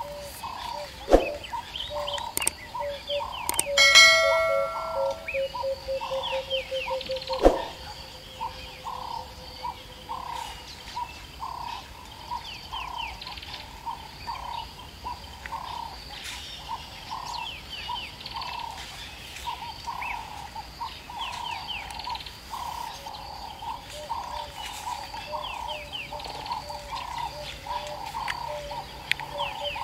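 Birds chirping, with a low call repeating at an even pace underneath. A few seconds in come two sharp knocks and a brief ringing chime-like tone that fades out slowly.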